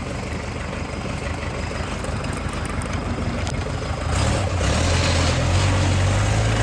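Backhoe diesel engine running steadily, then rising in speed and getting louder about four seconds in.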